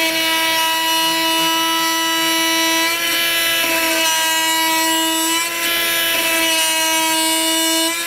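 Festool cordless oscillating multi-tool running at full speed, its blade plunge-cutting into red oak, a steady high-pitched buzz.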